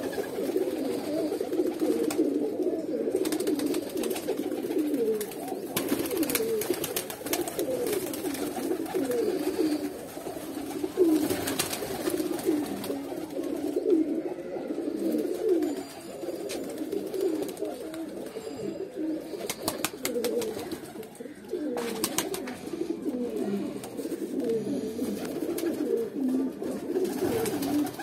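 A flock of teddy pigeons cooing together, many overlapping coos running on without a break, with a few brief sharp clatters now and then.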